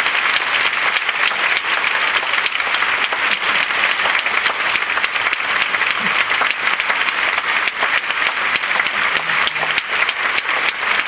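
Large theatre audience applauding, a dense, steady clapping for a ballet curtain call.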